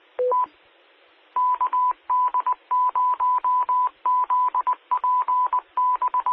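Amateur radio repeater identifying itself in Morse code: a single steady beep tone keyed on and off in dots and dashes, starting about a second and a half in. Just before it, near the start, a short two-note courtesy beep, low then high, marks the end of the previous transmission.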